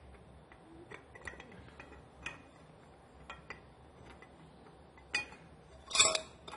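Two metal motorcycle exhaust header pipes being handled on a tile floor: faint scattered taps and clicks as they are shifted, then a couple of louder clatters near the end as the pipes knock together and against the tiles.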